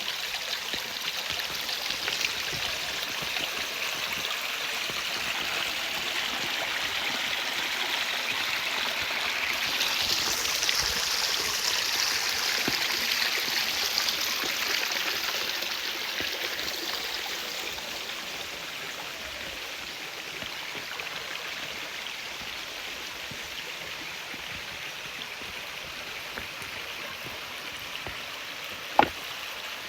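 Mountain stream running over rocks: a steady rush of water that swells louder for several seconds in the middle and settles quieter afterwards, with one sharp click near the end.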